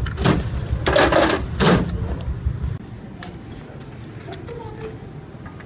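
Metal engine parts and tools clattering as a Toyota 1SZ cylinder head is dismantled: a few loud knocks and clatters over a low hum in the first couple of seconds, then, after the sound drops off abruptly, light metallic clicks and taps.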